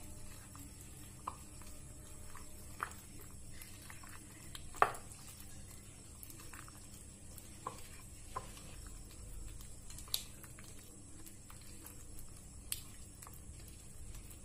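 A spoon stirring thick biscuit-and-milk cake batter in a glass bowl: soft wet scraping with scattered light clicks of the spoon against the glass, the loudest a little under five seconds in.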